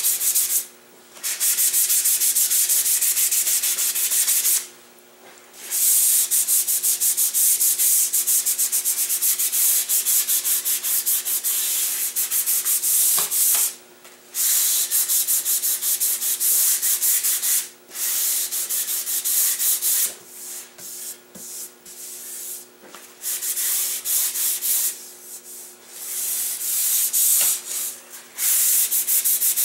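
Sandpaper sanding red oak: a loud, scratchy rasp in long runs broken by brief pauses, choppier in the later part, over a steady low hum.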